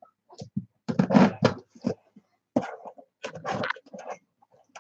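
A cardboard shipping box being handled and opened by hand: a run of short, irregular scraping and knocking noises from the packaging.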